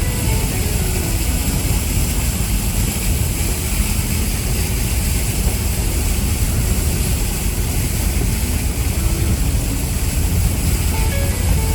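A vehicle driving: a steady low engine rumble under a constant wash of road and wind noise.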